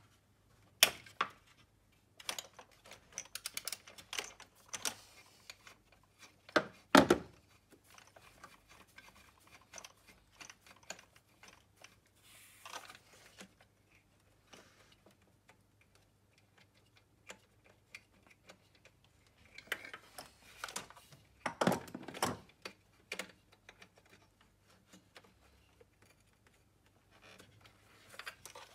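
Hand-tool work in an engine bay: irregular clicks and metal clinks of a ratchet spanner working a nut under a plastic intake manifold, with a few louder knocks about 7 seconds in and again around 22 seconds.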